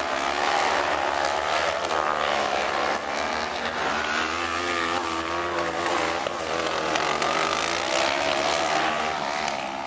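Several 500 cc kart cross buggy engines racing together, each revving up and down in pitch as the karts accelerate and ease off around the dirt track.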